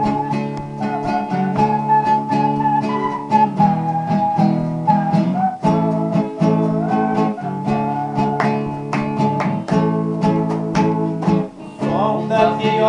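Viola caipira, the Brazilian ten-string steel-strung guitar, playing an instrumental introduction of picked notes over a pitched accompaniment.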